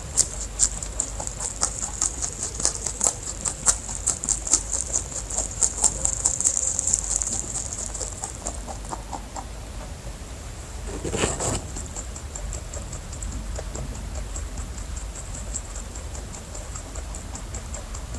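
Rabbits making rapid small clicks and rustles, dense for the first several seconds and lighter later, with one louder scuffle about eleven seconds in.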